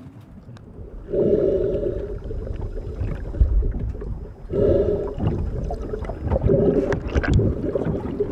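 Wind and sea aboard a sailboat under way: wind buffeting the microphone with a low rumble, and a moaning tone that sets in about a second in, breaks off briefly in the middle and returns.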